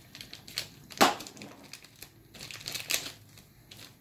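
Small clicks and rustles of hands handling small parts, fetching a 7mm motor screw. There is one sharper click about a second in and a few quicker clicks near the end.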